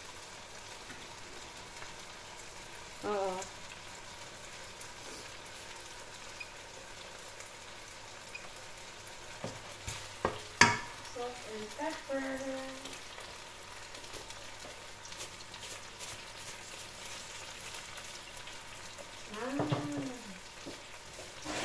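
Sliced onions and food pieces sizzling steadily as they fry in a non-stick wok. A wooden spatula stirs them about ten seconds in, scraping and knocking once sharply against the pan.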